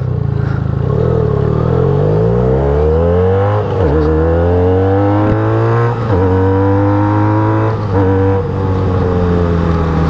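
Benelli 302S motorcycle's parallel-twin engine accelerating through the gears. The revs climb, dip briefly at gear changes about four and six seconds in and again near eight seconds, then hold fairly steady.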